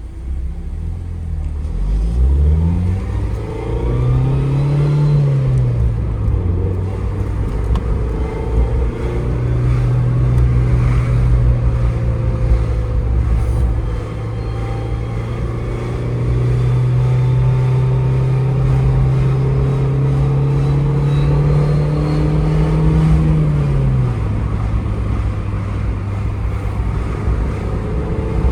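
Mazda MX-5 (ND) 1.5-litre four-cylinder engine pulling under acceleration. The revs climb early, rise and fall, then hold steady for a long stretch and drop off near the end. Mixed in is an abnormal noise that the owner hears when accelerating.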